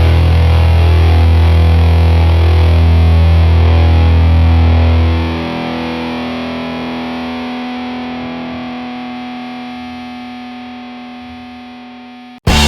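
Soundtrack rock music: a loud distorted electric guitar chord held and left to ring. The bass drops out about five seconds in and the chord decays slowly, cutting off abruptly just before the end, when loud music starts again.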